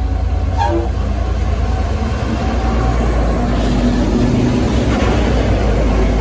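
N class diesel-electric locomotive running, a heavy low engine rumble that grows louder about halfway through as it pulls away, with a brief high tone just under a second in.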